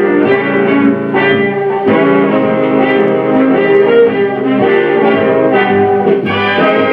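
Wurlitzer 1015 jukebox playing a record through its tube amplifier: an instrumental passage led by guitar, with no singing.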